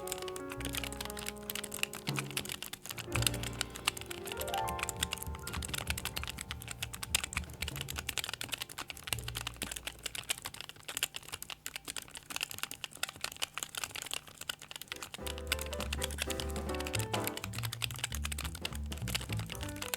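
Rapid, continuous typing on the assembled ALIEN88 custom mechanical keyboard: many fast key clacks, heard over background music.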